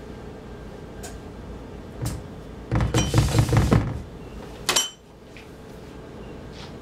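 Kitchen clatter of utensils and dishes being handled on a countertop: a few knocks, then a noisy run of knocks and handling, and a sharp clink with a short ring near the end.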